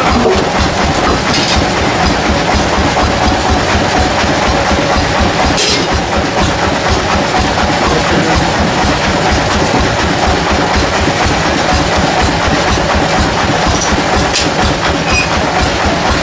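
Sawmill machinery running steadily and loudly, with a fast, even rattle underneath and a few short sharp clicks.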